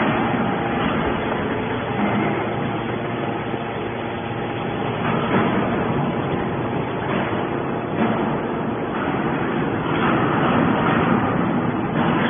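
Mini hydraulic can baler running: a steady motor and hydraulic pump noise, with a few brief louder surges.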